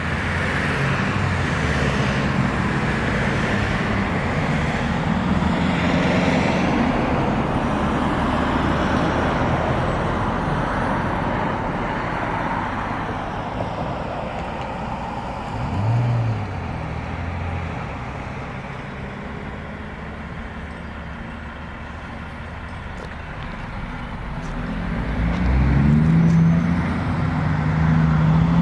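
Car engines running, with a short rev about halfway through and an engine revving louder and higher near the end.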